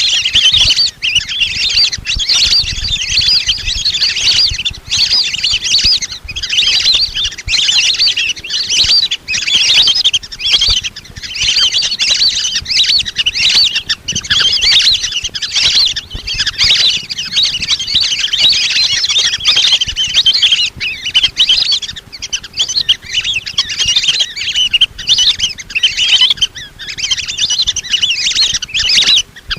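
A flock of lesser whistling ducks calling: a dense, continuous chorus of high, thin whistled chirps, the call used to lure in wild whistling ducks.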